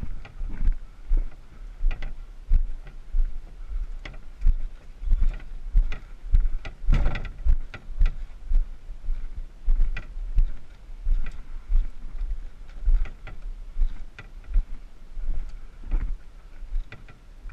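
Walking footsteps under a carried overturned canoe, heard from beneath the hull: a steady run of dull thumps, one to two a second, as the canoe jolts on the shoulders with each step, with light knocks from the hull and yoke and one louder knock about seven seconds in.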